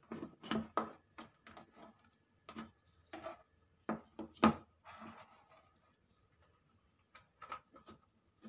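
Handling noise as a small plastic tester box and multimeter test leads are picked up, turned and set down on a wooden table: a run of knocks and clicks, the loudest about four and a half seconds in, with a brief scrape just after and a few more clicks near the end.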